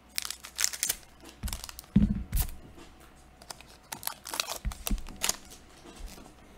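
Magic: The Gathering trading cards being handled: quick rustles and flicks as cards slide over one another, with a heavier thump about two seconds in.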